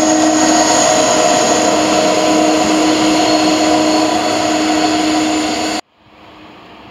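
Airbus A330-300 jet engines running at taxi power as the airliner rolls close past, a loud steady whine with several held tones over a rushing noise. Near the end the sound drops suddenly to a much quieter rumble.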